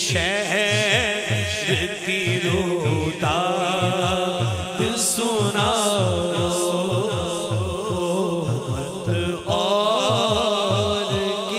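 Devotional naat singing: a man's voice holding long, wavering melismatic notes over a steady low beat of about three strokes a second and a backing vocal drone.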